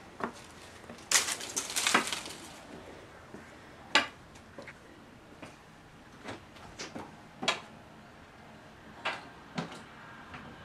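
Scattered knocks, clicks and light clatter of a person moving through a room and opening a door, a dozen or so separate short sounds with a cluster about a second or two in and a sharp knock at about four seconds.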